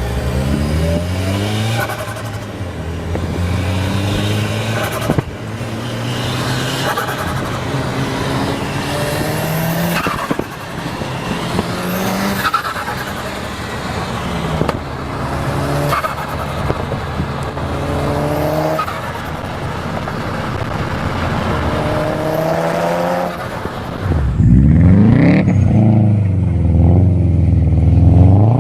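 Turbocharged car engine revved again and again, about every two seconds, each rise in pitch cut off sharply with a blow-off valve or turbo flutter release. Near the end a different, louder turbocharged engine is revved.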